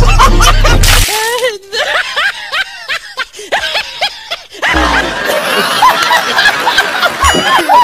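High-pitched snickering laughter, a comic laugh sound effect, repeating in short giggles after a brief burst of music. A low thud comes about five seconds in, then a busier run of laughter.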